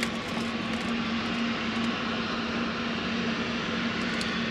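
Steady mechanical drone with a constant low hum, holding an even level without rising or fading.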